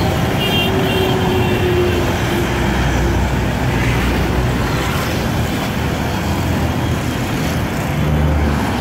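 Busy road traffic passing close by: motorcycles, cars and minibuses with their engines running, a steady rumble and road noise. A few short high beeps sound near the start.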